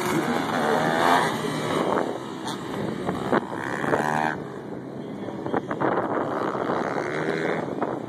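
Supermoto dirt bike engines racing around the track, the pitch climbing and dropping repeatedly as the riders accelerate, shift and back off.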